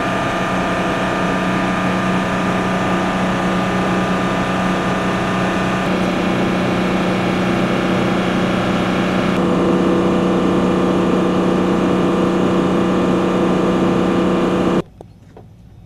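Loud, steady machinery drone made of several steady tones, in a helicopter maintenance area. It cuts off abruptly near the end, leaving much quieter background with a few faint clicks.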